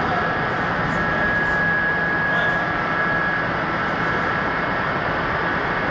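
Industrial machinery running steadily, a loud even rush of noise with a faint high whine held through it.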